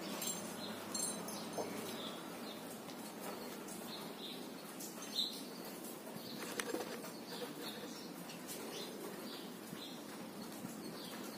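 Faint rustling and light scattered clicks of fingers handling the dry, fibrous roots of a desert rose, over a steady background hiss.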